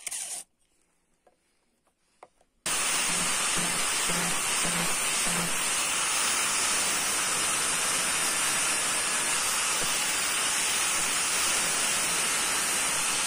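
Angle grinder grinding the edge of a 5160 spring-steel knife blank. After about two seconds of near silence, it starts suddenly and runs on as a steady, loud, hissing grind of abrasive disc on steel.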